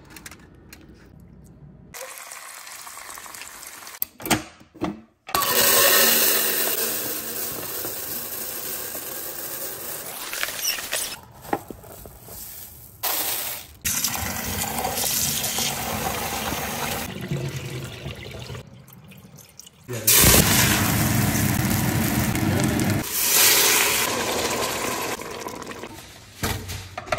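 Tap water running into a bowl of rice to rinse it, heard in several stretches that start and stop abruptly.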